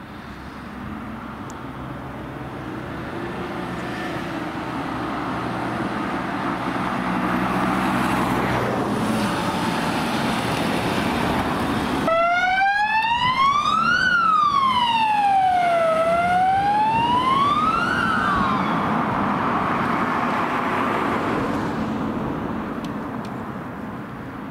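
Mercedes-Benz Sprinter ambulance driving past, its engine and tyres growing louder. About halfway through its siren comes on in a slow wail, rising and falling about every two seconds for three sweeps, then stops, and the vehicle noise fades as it drives off.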